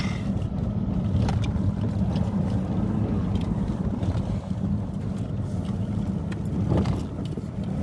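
Steady low rumble of road and engine noise inside the cabin of a moving car, with a few light knocks.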